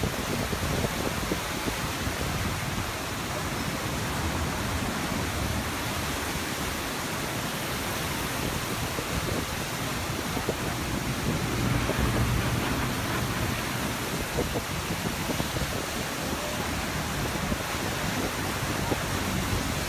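Turbulent floodwater rushing through a concrete spillway: a steady, even rush of water with no breaks.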